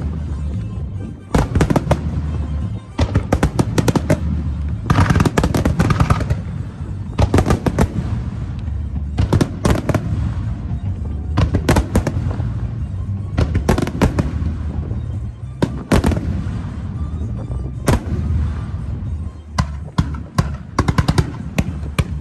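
Aerial fireworks shells bursting in a grand finale: rapid clusters of sharp bangs and crackle over a continuous low rumble.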